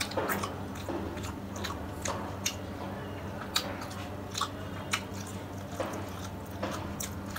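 A person chewing a mouthful of fish curry and rice close to the microphone, with irregular wet smacking clicks about once or twice a second.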